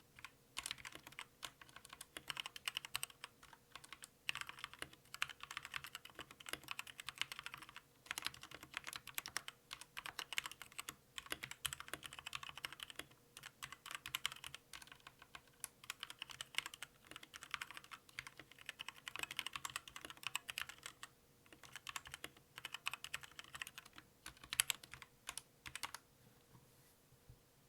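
Typing on a Zet Gaming Blade Pro mechanical keyboard with Kailh Red linear switches: fast runs of key clacks broken by short pauses. The typing stops near the end.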